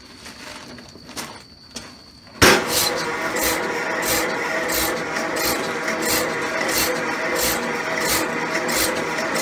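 Portable electric cow milking machine switched on about two seconds in: its vacuum pump starts with a sudden jump in level, then runs steadily with a regular pulsing about twice a second.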